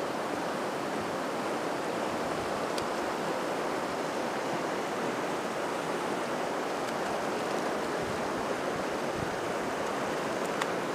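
Fast-flowing mountain river rushing over rapids, a steady wash of moving water.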